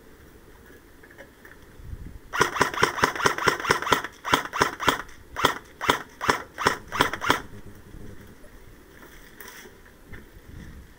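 Airsoft rifle firing close by: a rapid burst of sharp shots, then a string of single shots about three a second, stopping a little past the middle.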